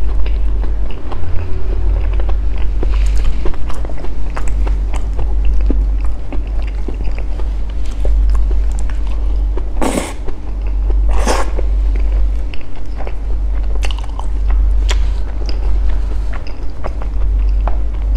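Close-miked chewing of soft durian sticky rice and durian flesh: wet mouth sounds with many small clicks over a deep low rumble. Two louder swishes come a little past the middle.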